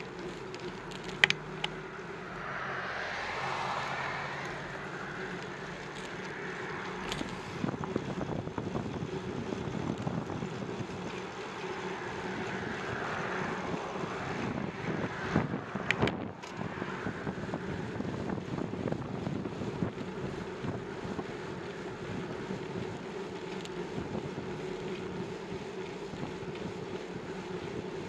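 Wind buffeting a microphone on a moving bicycle, with a steady hum and rolling road noise, broken by a few sharp knocks, the loudest near the start and around the middle.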